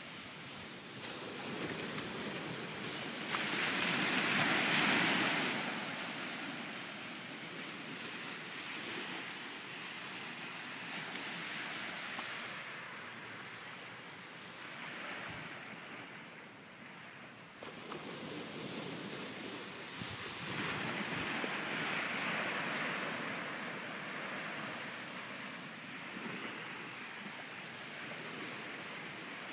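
Ocean surf washing on a beach, a steady rush of breaking waves with two louder surges, about four seconds in and again around twenty seconds in, and wind buffeting the microphone.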